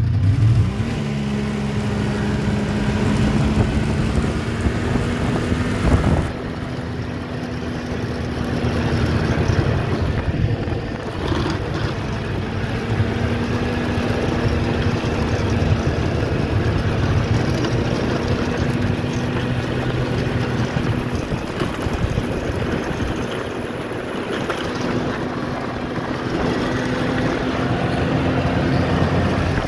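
Polaris snowmobile engine running steadily at cruising speed, rising in pitch just after the start as it speeds up, with wind noise on the microphone.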